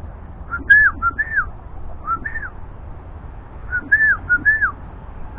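Clear whistled notes, each a short rise and fall in pitch, coming in quick groups of two or three with pauses between.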